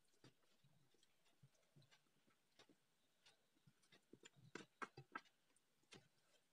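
Faint eating sounds: scattered soft clicks and smacks from fingers mixing rice and curry on a steel plate and from chewing, with a quick cluster of them about five seconds in.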